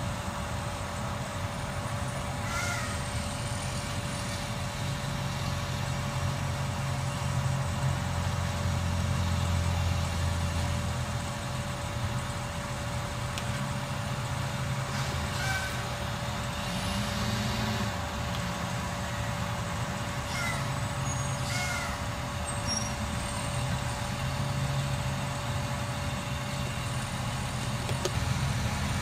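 Diesel engine of a Freightliner Condor garbage truck with a McNeilus automated side-loader body, idling low while the truck creeps forward, with a steady whine running over it. A few short air-brake hisses and brief high chirps come through at intervals.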